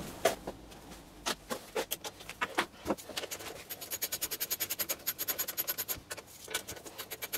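Socket ratchet clicking in fast, even runs of about ten clicks a second, twice, while bolts holding the SV150 lawnmower engine's air filter box and carburettor are spun off. A few scattered metallic taps and clinks of tools come before the runs.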